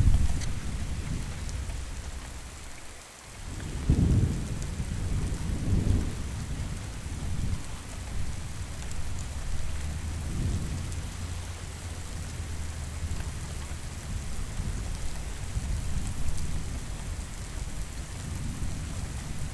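Steady rain with rolling thunder. A heavy rumble swells about four seconds in, after a brief lull, and further rumbles follow at intervals over the continuous hiss of the rain.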